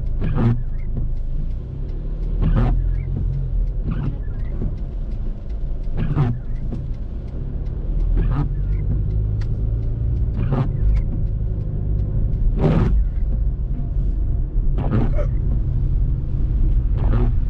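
Car driving on a wet road, heard from inside the cabin: steady low engine and tyre rumble, with a windshield wiper swishing across the glass about every two seconds.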